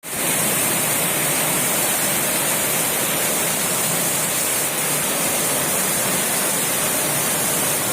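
Heavy rain falling, a steady rushing hiss.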